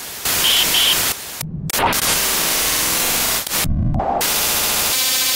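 Glitch sound effect: loud static hiss that cuts in and out abruptly several times, with a few short low thuds.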